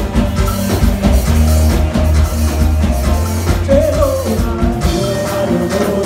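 Live band music: a man singing into a microphone over a drum kit and band, with backing singers.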